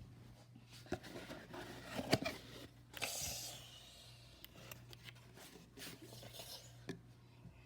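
Rubbing and scraping handling noises with a few sharp clicks, and a brief hissing rush about three seconds in, over a steady low hum.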